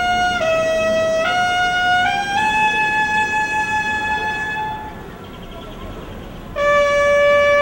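Clarín (a ceremonial trumpet) sounding a slow call of held notes, stepping upward from note to note and holding the highest for about two seconds. After a brief break, a new phrase starts near the end.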